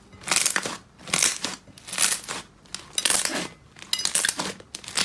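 Slime being squeezed and pressed by hand: repeated noisy, crackly squishes, roughly one a second.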